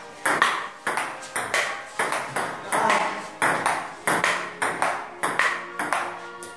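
Table tennis ball in a fast rally, clicking off the paddles and bouncing on the table in a steady run of about three to four hits a second, each click ringing briefly.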